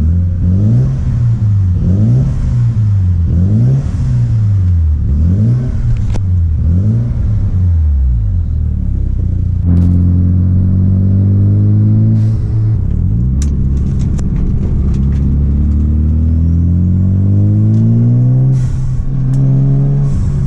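Mazda RX-7 FD's twin-turbo 13B rotary engine revved up and down repeatedly for the first half, then running at a steadier, higher speed and climbing in pitch again near the end.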